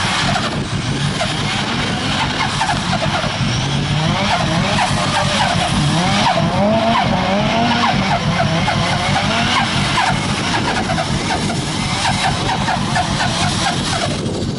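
A turbocharged Nissan S13's engine revving hard, its pitch rising and falling again and again, while the rear tyres spin and squeal in a burnout and donuts.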